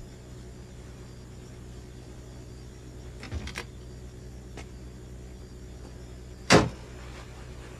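Car door: a few soft clicks and knocks as it opens, then one loud slam shut near the end, over a steady low hum.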